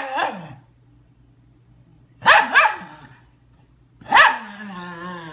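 Dogs play-fighting, with short, sharp play barks: one at the start, two close together about two seconds in, and one just after four seconds that trails into a long, drawn-out, falling call.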